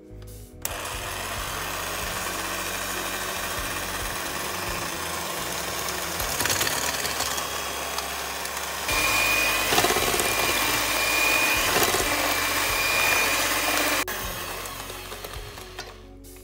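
Electric stand mixer with twin wire beaters running in a stainless steel bowl, creaming butter and icing sugar. The motor starts about a second in, runs steadily, gets louder with a high steady whine from about halfway, then drops back and winds down near the end.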